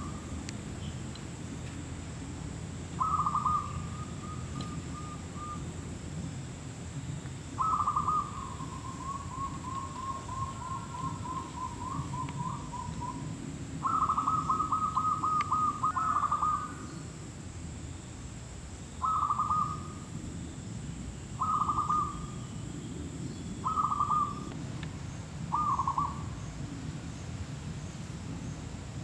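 Zebra doves cooing: seven phrases of quick staccato coos a few seconds apart, the second trailing off into a long run of rapid notes.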